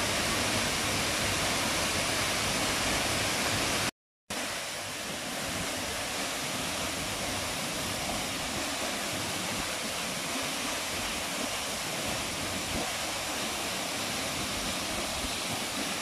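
Steady rush of a tall waterfall plunging into a pool. The sound cuts out for a moment about four seconds in and comes back slightly quieter.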